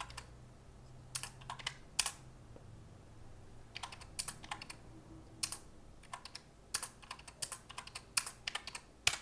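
Calculator keys being tapped: a string of irregular sharp clicks, several close together, while figures are added up.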